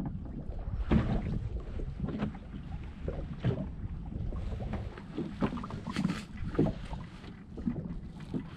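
Small waves slapping against the hull of a small drifting boat, in irregular splashy knocks, with wind rumbling on the microphone.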